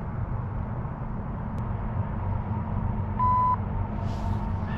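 Steady low rumble of distant diesel freight locomotives, with a single short high beep about three seconds in.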